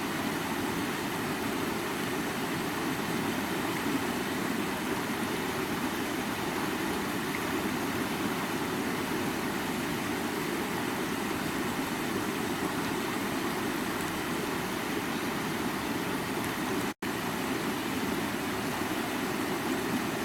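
Creek water running steadily, a constant rushing with its weight in the low-middle range. It cuts out for an instant once, near the end.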